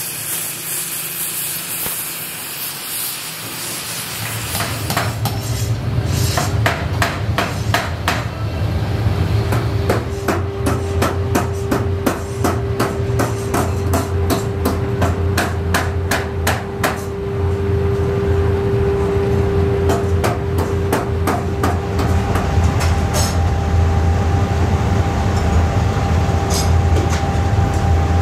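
An oxy-fuel cutting torch hissing as it cuts through a steel axle shaft. About four seconds in, a steady low machine drone with a humming tone takes over, and over it come rapid, evenly spaced hammer blows on metal, about three a second, for roughly twelve seconds before they thin out to a few single strikes.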